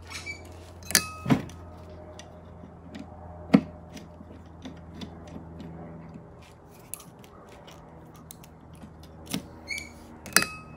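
Small metal clicks and knocks as the screws holding a Model A Ford horn together are backed out with a screwdriver and handled. Two sharper metallic clinks, about a second in and near the end, ring briefly. A low steady hum runs underneath.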